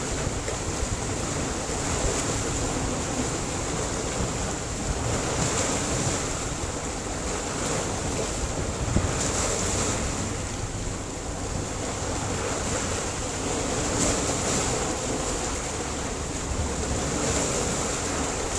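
Sea surf washing against a rocky shore: a steady rush of water that swells and eases every few seconds as waves come in.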